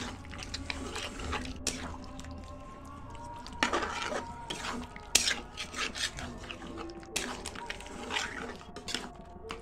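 Spatula stirring thick, wet chicken curry in a metal kadai: irregular scrapes and clicks against the pan, with wet, sloppy stirring sounds.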